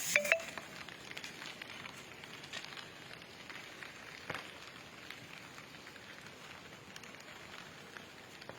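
Light rain falling, an even hiss scattered with irregular drips and small ticks, with two sharp clicks right at the start.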